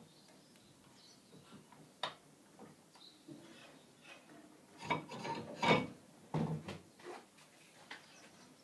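Hand handling of a jigsaw while its blade is changed for a metal-cutting blade: scattered light clicks, metallic clatter and rubbing, busiest with a cluster of louder clatter about five to six and a half seconds in.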